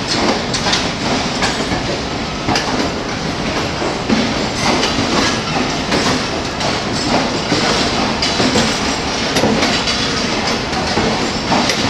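Pakistan Railways economy-class passenger coaches rolling past as the train pulls out: a steady rumble of wheels on rail, with repeated clicks as the wheels cross the rail joints.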